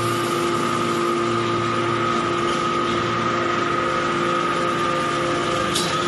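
Hydraulic metal-shaving briquetting press running steadily: an even machine noise with a constant high whine over a lower hum.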